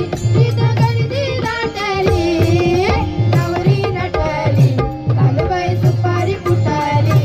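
Indian wedding music for mangalashtak verses: tabla strokes keep a steady rhythm under a melody line whose pitch bends and wavers.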